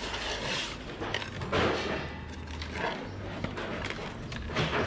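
Hands moving cut fish pieces about in a steel pot, with a few short knocks and scrapes of fish and pot, the loudest near the end. A low steady hum runs underneath.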